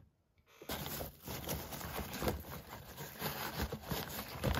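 A hand rummaging through foam packing peanuts in a cardboard box: a continuous rustling and scraping with small clicks, starting just under a second in after a brief hush.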